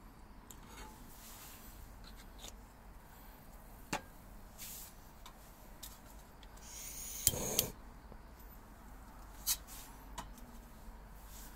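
Scattered light clicks and knocks of small objects being handled. About seven seconds in comes a short rustling scrape ending in two sharp clicks.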